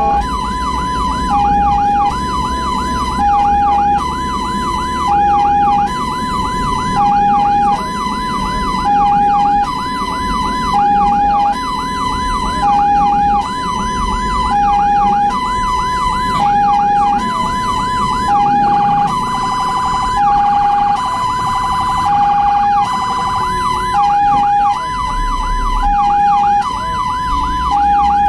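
Ambulance siren sounding a two-note hi-lo tone that switches about once a second, with a fast up-and-down yelp over it. About 19 seconds in, the yelp briefly turns to a quicker warble. Vehicle engine and road rumble run underneath.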